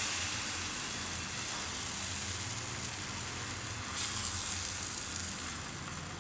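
Banana and wheat-flour pancake batter sizzling steadily on a hot, oil-greased tawa as it is spread out by hand, swelling briefly louder about four seconds in.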